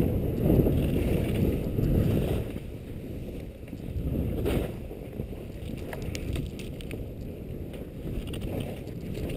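Wind rushing over the camera's microphone as a ski tourer skis downhill through snow, with the skis sliding on the snow. It is louder for the first two and a half seconds, then drops lower, with a few faint clicks.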